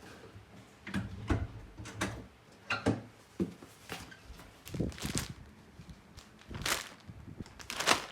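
An irregular series of knocks, clicks and clunks, about ten in all, of things being handled and set down.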